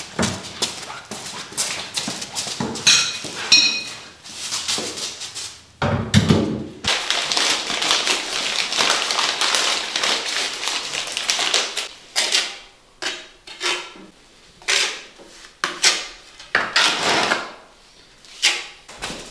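Clatter and knocks of renovation work, then a run of short scraping strokes about once a second: a trowel spreading tile adhesive onto a floor tile.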